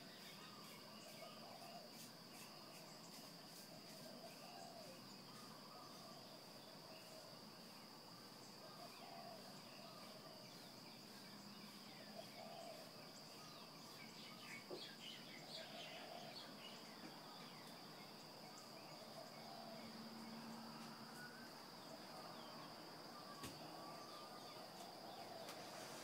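Faint dawn birdsong: short low calls repeating every second or two, with scattered higher chirps, over a steady high-pitched insect trill.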